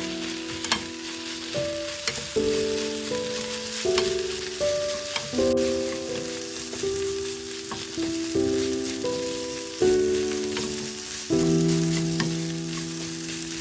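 Fried rice with salted octopus sizzling in an oiled frying pan, with a spatula stirring and scraping against the pan in scattered clicks. Background music with sustained chords plays throughout.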